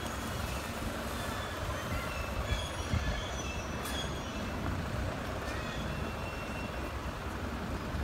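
A large crowd walking past in silence: the steady shuffle of many footsteps, over a low, even rumble, without talking or chanting.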